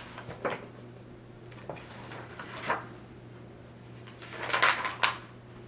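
Paper rustling and flapping as a hardcover picture book is opened and its pages turned, in a few short bursts with a busier patch about four and a half seconds in, over a faint steady low hum.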